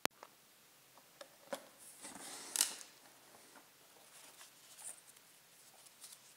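Paper and packing being handled in an open cardboard box: light crinkling and small ticks, with a louder rustle about two and a half seconds in. A single sharp click at the very start.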